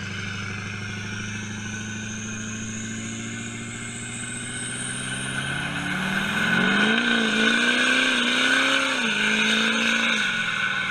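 LMM Duramax 6.6-litre V8 turbodiesel with a Garrett turbo and axle-dump exhaust doing a burnout, with the rear tires spinning. The engine drones steadily while a high turbo whistle rises in pitch. About six seconds in, the revs climb and hold, wavering, then drop back near the end.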